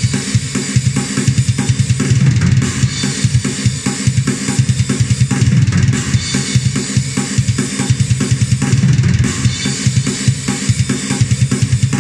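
Sampled drum kit from Ugritone's KVLT Drums II plugin, 'Mysterious Satan' preset, playing a fast metal groove at 145 BPM: rapid kick drum strokes under steady cymbals, with a snare carrying a lot of reverb, in an early-90s black metal sound.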